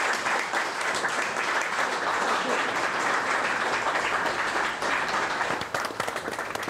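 Crowd applauding: dense, steady clapping that thins to more scattered claps near the end.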